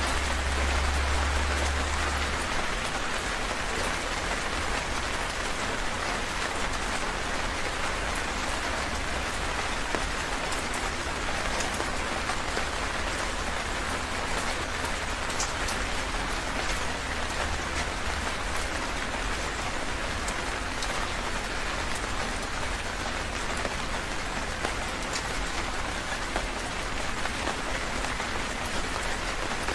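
Heavy rain falling steadily: a dense, even hiss with scattered drop ticks. A deep low rumble underneath fades out about two seconds in.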